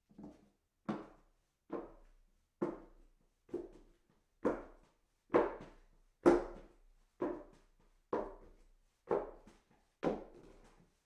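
Footsteps walking up hollow wooden stairs, a steady tread of about one step a second, each a hollow knock on the wood.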